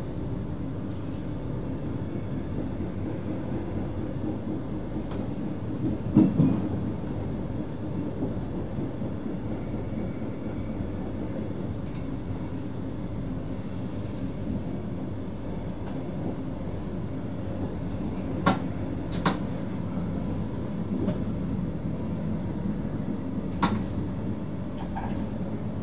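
NS VIRM double-deck electric train running steadily, heard from the driver's cab as a low rumble. Its wheels give several sharp knocks over the track, the loudest about six seconds in.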